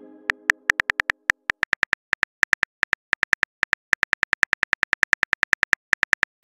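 Phone-keyboard tap clicks from a texting-story app as a message is typed out letter by letter: short identical clicks, several a second, in quick uneven runs. The tail of a musical tone fades out in the first second and a half.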